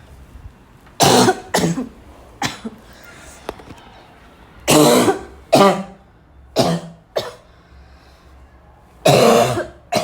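A woman coughing in loud, separate fits. There are two coughs about a second in, a run of four around the middle, and one last, longer cough near the end.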